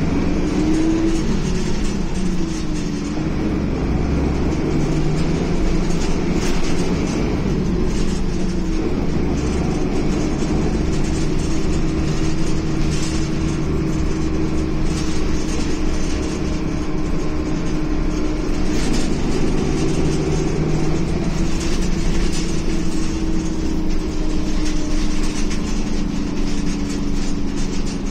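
Ikarus E94.53 bus heard from inside the passenger cabin while driving: steady engine and road rumble with a low whine that slowly rises and falls in pitch as the bus speeds up and slows, and a few brief knocks and rattles.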